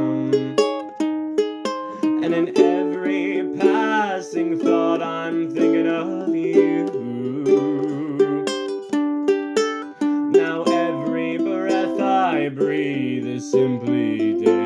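Instrumental break of a musical-theatre love-song demo: plucked-string chords and melody notes, with no singing.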